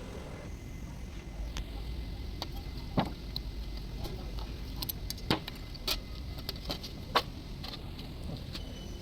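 A series of short, sharp clicks and knocks, the loudest about three, five and seven seconds in, over a steady low hum.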